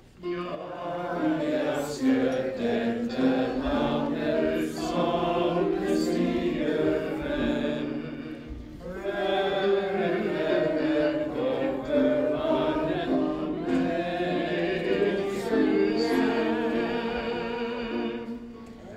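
A group of people singing a song together, with a short break between phrases about eight and a half seconds in.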